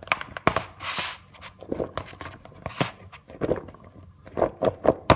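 Boiled potato strips being tossed and shaken in gram flour in a bowl to coat them for frying: a run of irregular soft knocks and rustles as the floured fries tumble against the bowl, with a brief hiss about a second in.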